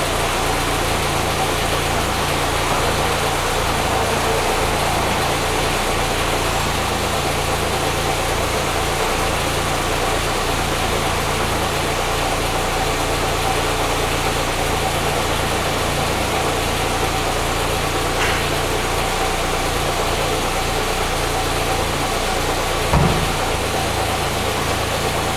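BMW E30 M3 convertible with its four-cylinder engine idling steadily while the electric soft top cycles up and closes, giving a steady hum with a thin whine over it. There is a short click about 18 seconds in and a dull thump about 23 seconds in as the top comes down onto the windscreen frame.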